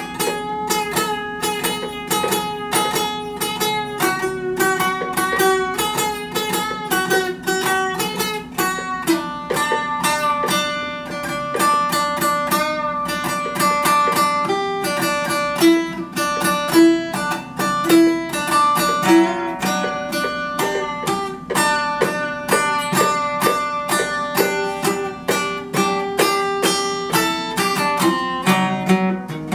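Solo acoustic guitar played with fast picking, several notes a second, in a steady flowing line.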